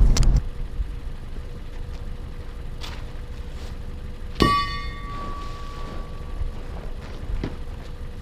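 A truck engine idles low and steady. About halfway through there is one sharp metallic clank that rings on briefly.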